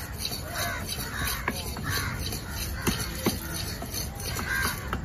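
Fish-cutting cleaver knocking on a wooden chopping block: a series of sharp, irregular knocks about half a second to a second apart, over a low steady rumble, with harsh cawing calls in between.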